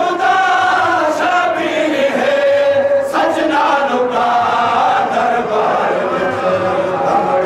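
A noha, the Shia mourning lament, chanted by men's voices: long held, wavering sung lines with a choir-like sound and no steady beat.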